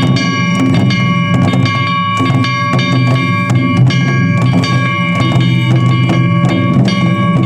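Japanese festival taiko drums beaten steadily in a dense rhythm, over a steady high ringing tone.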